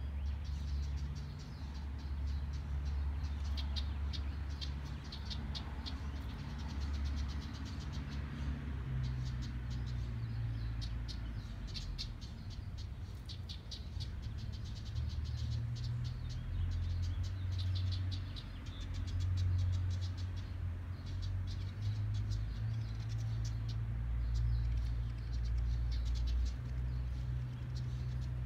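Rapid, dry, rattling chatter of high clicks, coming in runs: typical of a house wren calling. Under it runs a steady low rumble.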